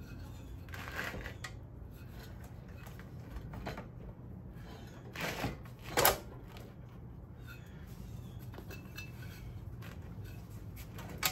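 Metal parts clinking and knocking as a motorcycle's front wheel is worked free, with one sharp metallic clank about six seconds in and another near the end, over a steady low hum.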